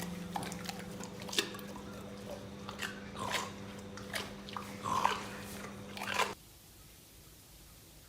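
An animal chewing, with a few sharp crunches, over a steady low hum. Both stop abruptly about six seconds in.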